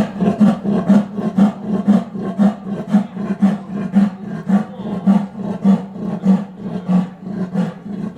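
A big cat's rasping call: a long, even series of grunting strokes, about two a second, without a break.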